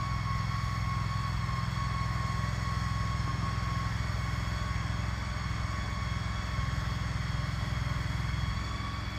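An engine idling steadily, with a thin high whine over it that fades out about four seconds in.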